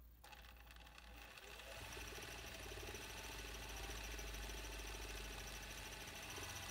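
Typical GC6880MD3Y industrial sewing machine running to wind a bobbin: the machine speeds up over the first couple of seconds, then runs steadily with a high whine.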